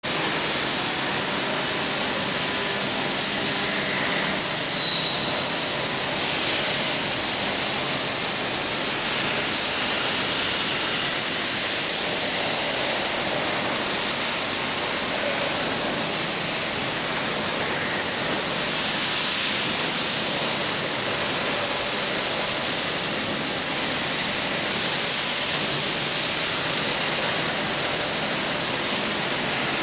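Steady, even hiss of running factory machinery with a faint hum under it, and a brief high chirp about four seconds in.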